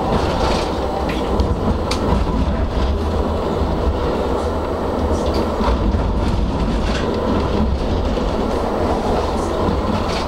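Tram running on street track, heard from inside at the front: a steady low rumble from the running gear, with sharp clicks and clatter from the wheels over rail joints and track switches.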